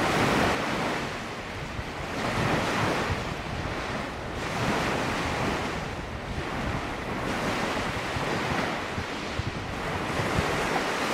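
Small surf breaking on a beach, the wash swelling and fading about every two seconds, with wind buffeting the microphone.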